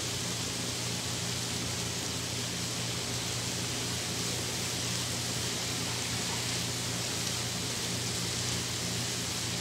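Onions, diced bacon and minced garlic sizzling steadily in oil in a frying pan, with carrots frying in a second pan, over a low steady hum.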